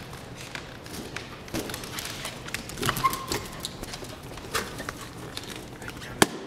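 A corgi's claws clicking and tapping on a wooden floor as it chases and noses a balloon along, with light thumps from the balloon. A short squeak comes about three seconds in and a sharp tap near the end.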